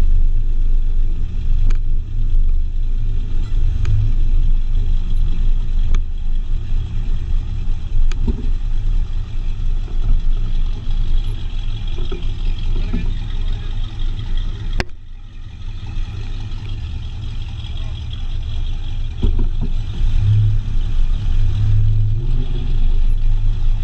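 Car engine and road noise while driving: a steady low rumble that eases off about fifteen seconds in, then builds again, with faint ticks about every two seconds.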